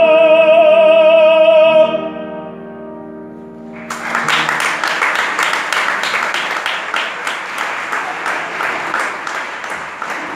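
A male operatic voice holds a loud high note with wide vibrato over grand piano chords, then cuts off about two seconds in. The piano rings on for a moment, and audience applause breaks out about four seconds in and keeps going.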